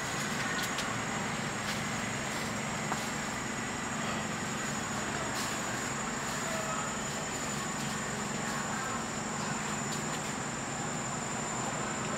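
Steady outdoor background noise: a constant high thin whine over a low hum, with a few faint ticks and no distinct event.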